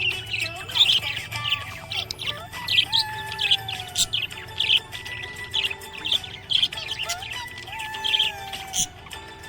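Budgies chirping in short, repeated bursts of high twittering, over background music with held melody notes.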